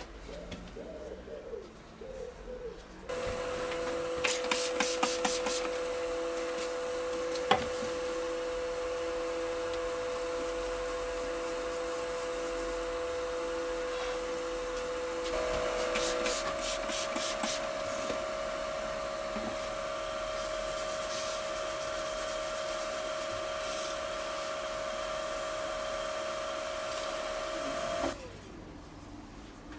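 Wood lathe running with a tool or abrasive working the spinning resin-and-banksia-pod blank: a steady hum with a rasping scrape. It starts and stops suddenly, and its tone steps up slightly about halfway through.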